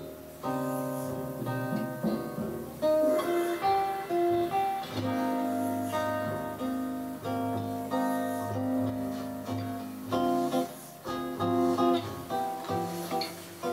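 Acoustic guitar music, picked notes and strummed chords, played back from tape on a Teac A-4010GSL reel-to-reel deck. This is a test playback of the repaired transport.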